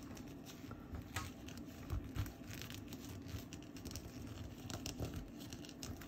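Black pencil scratching over sketchbook paper in short, irregular strokes as lines are drawn, a few strokes louder than the rest, over a low steady hum.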